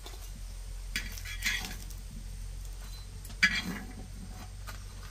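Steel spatula scraping a black iron frying pan and clinking against a steel plate as fried pumpkin-flower fritters are lifted across. It comes as a few short scrapes and clinks, the sharpest about three and a half seconds in.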